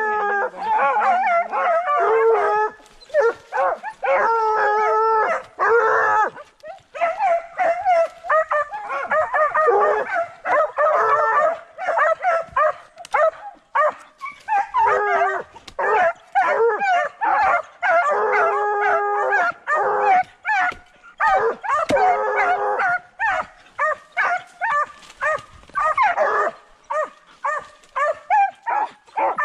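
A pack of hunting hounds baying and howling at a burrow, several voices overlapping in long drawn-out calls that become shorter, choppier barks later on: the hounds are marking an agouti run to ground in the hole.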